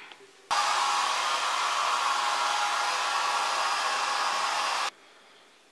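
Hair dryer blowing steadily, with a faint steady whine under the rush of air. It switches on suddenly about half a second in and cuts off suddenly about four seconds later.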